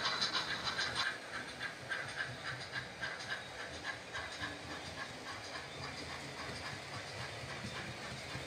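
Oxford Rail OO gauge Dean Goods model steam locomotive's DCC sound decoder playing steam-engine chuffs through its small speaker, a steady beat of about three a second that eases after about four seconds, over the low rumble of the model's wheels and wagons on the track.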